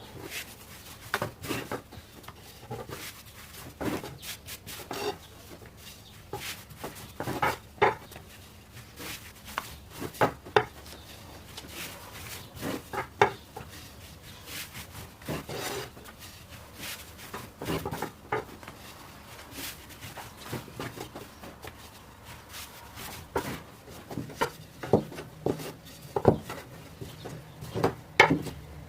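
Food-preparation handling sounds: irregular light knocks and rubbing, a few a second, as ingredients and utensils are worked on a kitchen surface.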